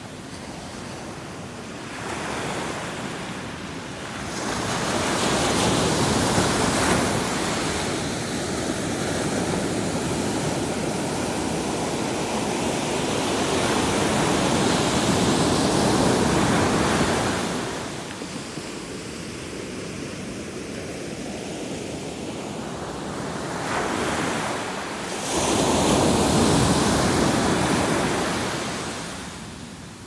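Atlantic Ocean surf breaking and washing up a sandy beach, rising and falling in long surges: one long swell of sound through the first half, a lull, then a short rise and another loud wash near the end.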